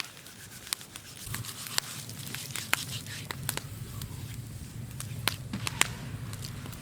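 Wood fire crackling, with irregular sharp pops and snaps from the burning firewood.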